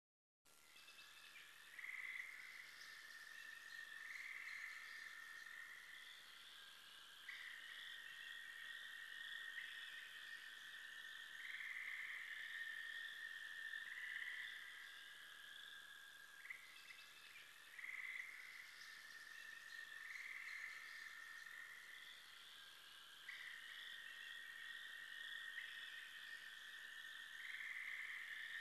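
Faint, high-pitched electronic soundscape drone that sounds like a night chorus of frogs or crickets. It starts about half a second in, and its tone steps up and back down every two to three seconds.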